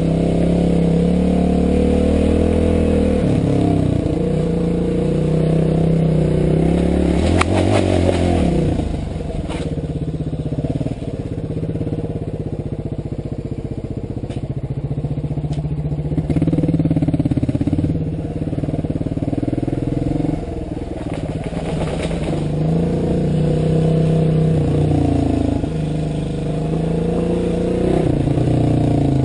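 Motorcycle engine running under a rider's throttle, the revs rising and falling again and again and easing off in the middle stretch, with a few sharp knocks and rattles along the way.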